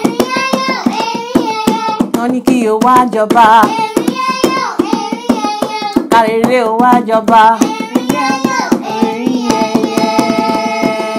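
A high voice singing a lilting folk song over quick hand-percussion strokes, ending on a long held note near the end.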